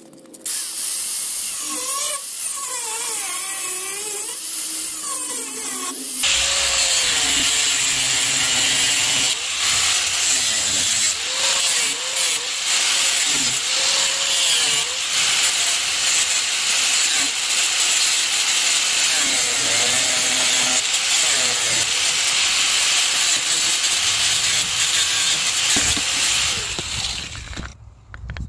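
Electric angle grinder with a cutoff disc grinding away a lip of the metal rear fork slot of a bike frame. The motor's whine dips and recovers as the disc bites. It gets heavier about six seconds in and winds down near the end.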